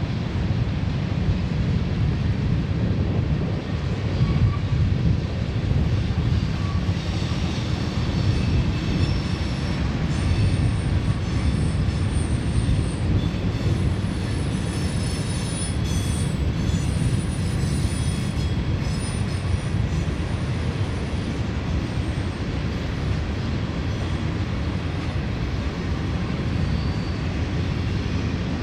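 Loaded freight hopper train rolling by with a steady low rumble of wheels on rail. Thin, high wheel squeal comes and goes over the middle of the stretch.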